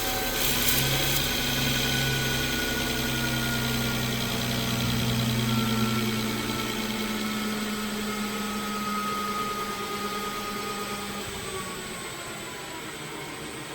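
CNC-converted metal lathe taking a finish facing cut on a 6061 aluminium blank, its spindle ramping speed to hold a constant surface speed. The machine runs steadily with a whine that slowly falls in pitch, and it grows gradually quieter toward the end.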